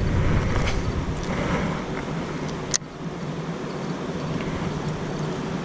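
Casting and reeling a baitcasting rod and reel against a steady rumbling background noise, with one sharp click about three seconds in.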